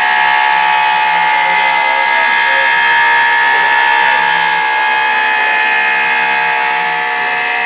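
Homemade CNC machine running, its motors giving a loud, steady whine that starts at once and holds without a break.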